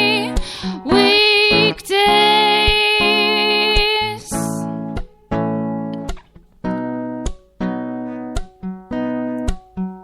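Live acoustic performance: a girl sings long held notes over acoustic guitar for about four seconds, then the guitar carries on alone with plucked chords, about two a second, each ringing out.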